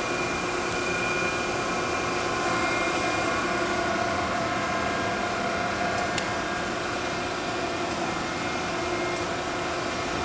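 Okamoto 1224 surface grinder running, a steady hum with several steady whining tones, judged to sound perfect; a single light click about six seconds in.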